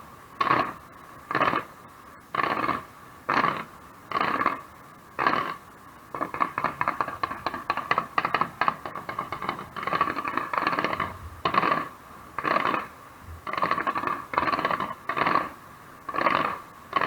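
Fireworks going off: a string of sharp bursts about one a second, with a stretch of dense crackling in the middle.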